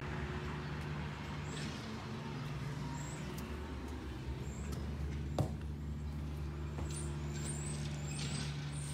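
Steady low machine hum, with one sharp click about five seconds in.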